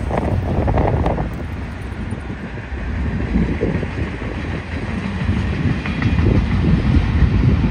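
Freight train cars rolling past: a continuous low rumble of steel wheels on rail with irregular knocks.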